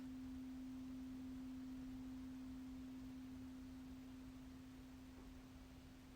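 Crystal singing bowl ringing with one pure, steady tone that fades slowly.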